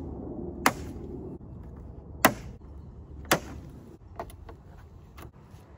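Plastic push-pin trim clips snapping out of a car's radiator support cover as they are pried loose with a clip remover tool: three sharp clicks about a second apart, then a few fainter ones.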